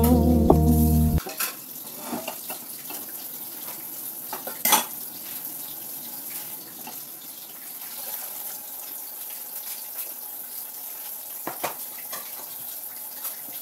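A pop song cuts off about a second in, leaving a steady hiss with scattered clinks of plates and utensils being handled at a kitchen counter, the sharpest clatter near the middle.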